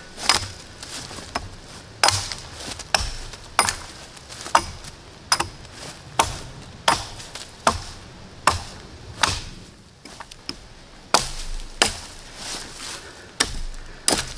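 Small axe chopping the side branches off a freshly felled green sapling, limbing it: a steady series of sharp strokes about every three-quarters of a second.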